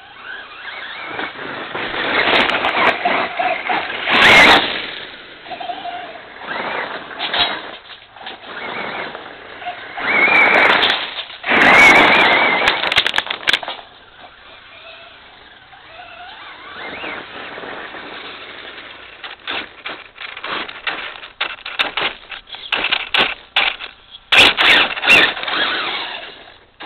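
Traxxas Slash RC truck with an Ezrun 3300kv brushless motor driving hard on gravel: the motor whine rises and falls with the throttle over the crunch and spray of the tyres in loose stones. It is loudest as it passes close, a few seconds in and again around the middle, with a run of sharp ticks near the end. The owner suspects something in the gearbox is binding a little.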